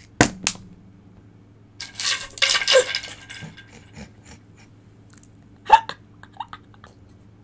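Small divination shells cast onto a table. There are two sharp clicks about a quarter and half a second in, then about a second of dense clattering and rattling from roughly 2 to 3 s, and one more sharp click just before the 6-second mark.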